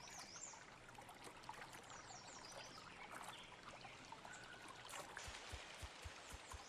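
Faint trickling of a shallow stream, with a few short high bird chirps early on.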